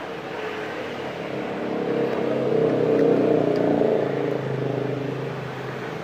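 A motor vehicle's engine passing by: a steady hum that grows louder to a peak about three seconds in, then fades.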